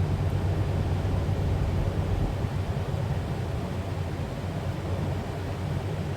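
1979 van's engine idling steadily with a low hum while it warms up toward thermostat-opening temperature, around 80 °C on the gauge. It gets slightly quieter a little before halfway.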